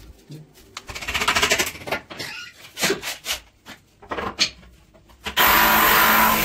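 Quick runs of hand strokes rubbing on wood. About five seconds in, a power tool starts and runs steadily at full speed.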